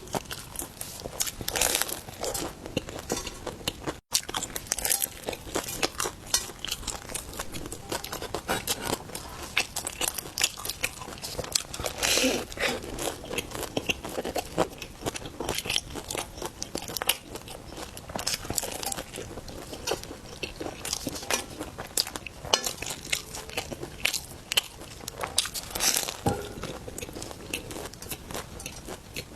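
Close-miked biting and chewing of roujiamo, the flatbread's crust crunching and crackling in irregular bites and chews. There is a brief drop-out about four seconds in.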